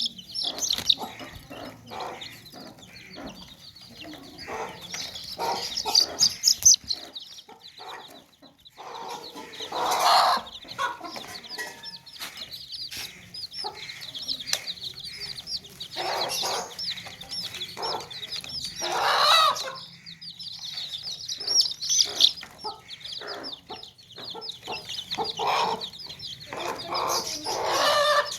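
Baby chicks peeping continuously in high, rapid chirps, with hens clucking now and then, louder and lower, among them.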